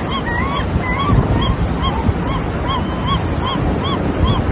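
An animal giving short, arched, high-pitched calls over and over, about three a second, over a loud, steady background noise.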